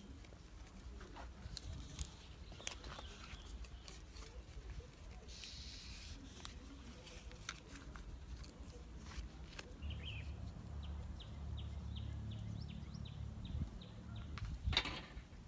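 Fresh banana leaves rustling and crackling with scattered sharp clicks as they are folded into a packet by hand. About ten seconds in a bird chirps once, followed by a quick run of faint ticks, and a louder knock comes near the end.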